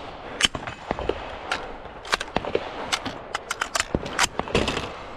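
Gunfire: a string of sharp, irregular cracks, with a quicker run of shots about four a second past the middle.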